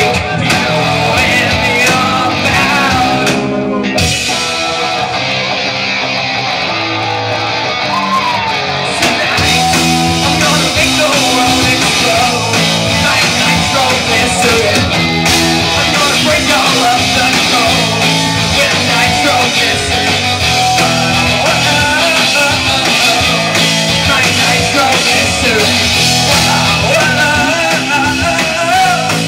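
Rock band playing live, loud and dense throughout. The top end thins out from about four seconds in, and the full band comes back in about nine seconds in.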